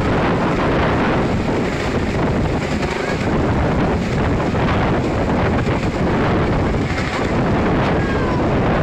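Light helicopter flying low overhead and climbing away, its rotor and turbine noise a loud, steady rush, with wind buffeting the microphone.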